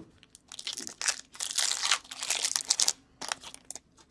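Trading card pack wrapper crinkling and tearing as it is torn open, with a few short ticks near the end as the cards are handled.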